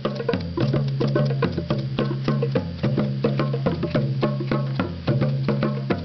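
Music with rapid, dense percussive hits over a repeating bass line.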